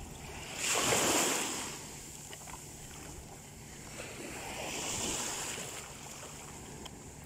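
Small sea waves washing in shallow water at the shore, with two louder swells of surf a few seconds apart, and some wind on the microphone.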